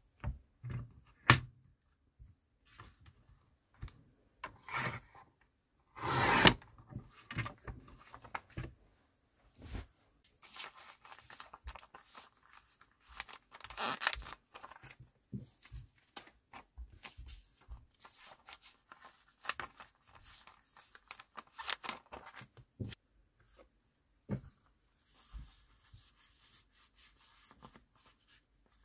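Desk handling of paper and plastic. There are sharp clicks and a loud half-second rasping stroke from a sliding paper trimmer cutting memo sheets, then a long stretch of crinkling as a memo pad is slid into a clear plastic sleeve, and soft rustles of memo sheets being shuffled near the end.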